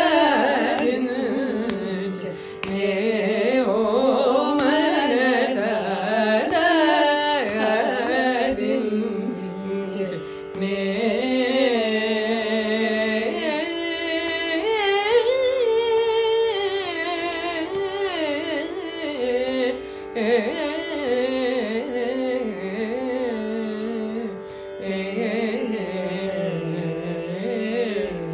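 Carnatic music in Arabhi raga, Adi tala: a melodic line bending through ornamented glides over a steady drone.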